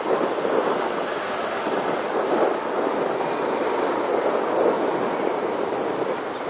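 Wind rushing over the microphone of a camera on a moving bicycle, a steady buffeting noise, with street traffic underneath.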